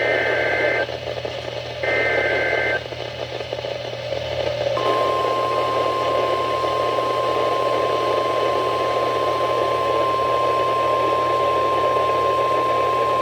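NOAA Weather Radio alert signal over radio hiss. Two short screeching SAME data-header bursts come first. About five seconds in, the steady 1050 Hz warning alarm tone starts and holds. It announces a new warning broadcast, here a severe thunderstorm warning.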